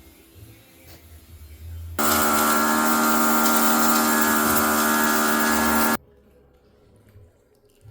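Loud, steady mechanical whine with a hiss over it, starting abruptly about two seconds in and cutting off abruptly about four seconds later. It is plausibly the hydraulic pump of a Caterpillar 236B skid steer loader, a pump described as critically worn.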